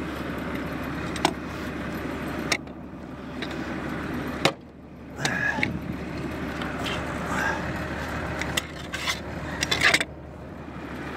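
Tractor engine idling steadily, with a few sharp knocks and bouts of scraping as soil caked on the plough's moldboard is knocked off.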